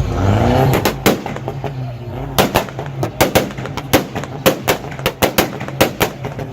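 Car exhaust firing an irregular string of sharp pops and bangs over a steady low engine note. They start about a second in and grow denser, to about four or five a second: the crackle of unburnt fuel igniting in the exhaust.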